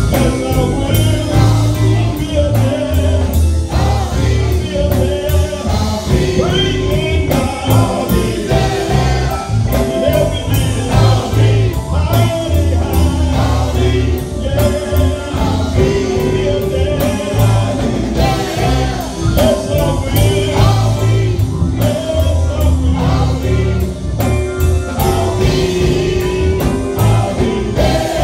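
Live gospel music: a male vocal group singing in harmony, backed by electric guitars and a drum kit.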